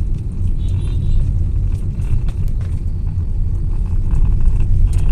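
Car cabin on a rough road: a steady low rumble of tyres and suspension, with scattered light clicks and rattles from around the steering of a Tata Altroz. The owner likens the rattle to a loose plastic part inside, and it appears only over small bumps.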